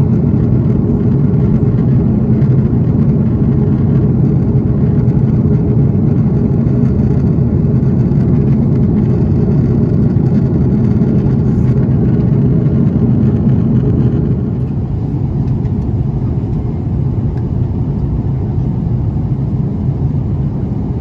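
Steady cabin noise of a jet airliner in descent: engine and airflow noise heard from inside the cabin as an even low rumble, easing slightly about fourteen seconds in.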